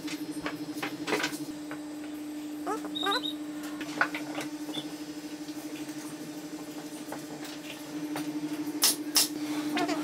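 Wooden birdhouse panels being handled and fitted together, then a bar clamp slid on and tightened: scattered knocks and clicks, a short run of squeaks about three seconds in, and two sharp clicks near the end, all over a steady low hum.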